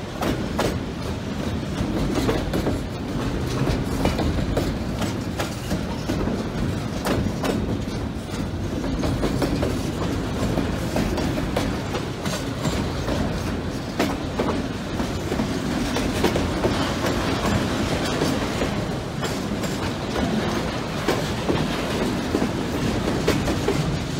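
Freight train of autorack cars rolling past: a steady rumble of steel wheels on the rails, with frequent sharp clicks and clanks as the wheels roll over the track.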